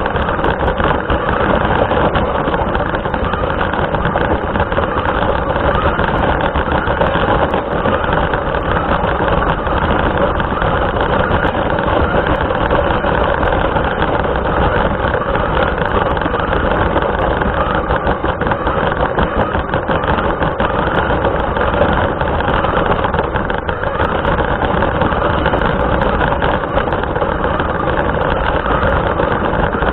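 RC car's motor and drivetrain running steadily, heard through the car's own onboard camera microphone, which gives a dull, muffled sound with no treble.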